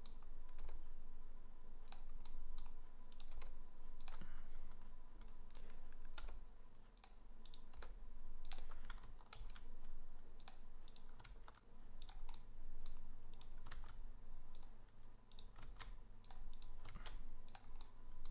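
Computer keyboard keys and mouse buttons clicking in irregular short runs, as keyboard shortcuts are pressed repeatedly. A faint steady hum runs underneath.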